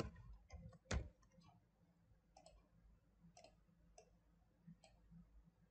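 Computer mouse button clicks, a handful of faint clicks about a second apart; the first two are the loudest.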